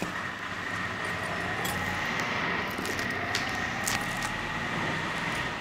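Plastic photo-album pages being handled and turned over by hand, rustling, with a few light clicks, over a steady background hiss with a faint high hum.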